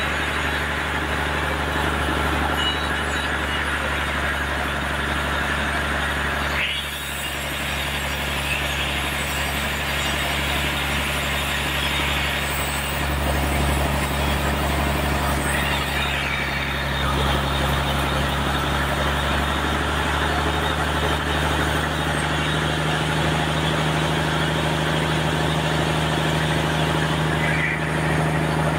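Sawmill running steadily as its saw blade cuts through a trembesi (rain tree) log: a constant motor hum under a hissing cutting noise, which briefly drops about seven seconds in.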